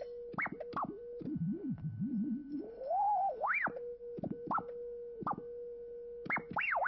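Electronic sine tones from a piece for percussion and electronics: a steady held tone keeps breaking off into quick gliding sweeps far down and up in pitch, like a theremin, with a few short clicks among them.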